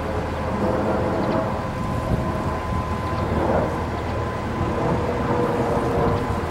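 Railway breakdown cranes' diesel engines and hydraulics running steadily during a lift: a low engine drone with a steady whine on top.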